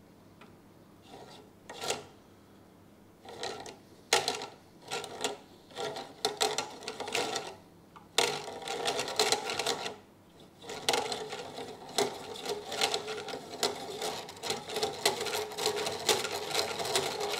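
Inland DB-100 fragging band saw's diamond blade running around its wheels as the bottom wheel is turned by hand to check the blade tracking. It comes as short ticking spurts at first, then a continuous rattly whir from about halfway, a noise the owner takes to be fairly standard.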